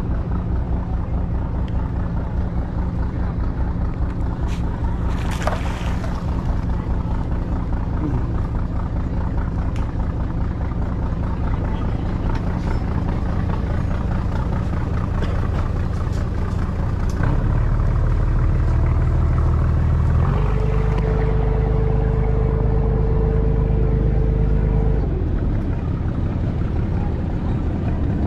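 A motor boat's engine running steadily. About two-thirds of the way through it grows louder for several seconds, with a steady whine added, then settles back.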